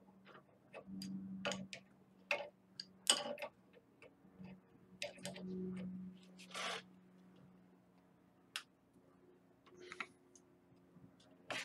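Wrench clicking and clinking against a brass threaded fitting as it is fitted, turned and repositioned, tightening the fitting down onto hemp-packed threads. Irregular sharp metal clicks, the loudest about three seconds in, with a short rasp near seven seconds.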